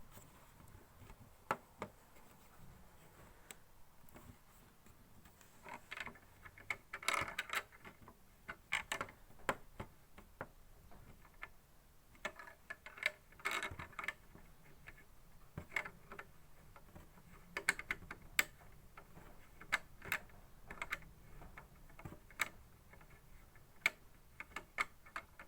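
Irregular small clicks and taps of plastic and metal parts being handled and fitted together while a ring light's ball-joint mount and holder are being assembled.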